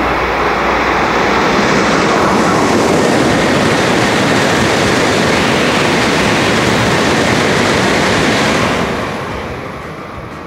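Tokaido Shinkansen train passing through a station at high speed without stopping: a loud, even rushing noise that builds over the first couple of seconds, holds steady, then dies away about nine seconds in.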